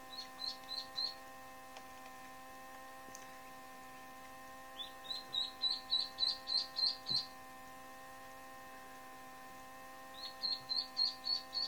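Indian Runner/Khaki Campbell cross duckling cheeping: runs of short, high peeps at about four a second, coming in three bouts, over a steady hum.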